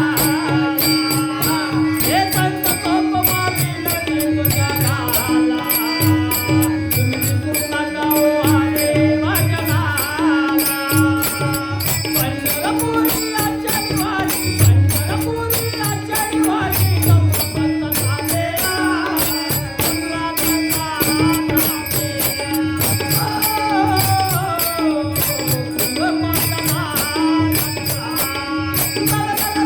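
Marathi devotional song music: a gliding melody over a steady held drone, with a regular drum beat and jingling cymbals keeping time.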